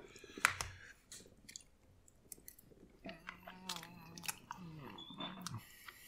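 Close-up chewing of microwave penne pasta in marinara sauce, with scattered wet mouth clicks and a sharp click about half a second in. A closed-mouth hum, like an 'mm' of tasting, runs through the middle of the chewing from about halfway.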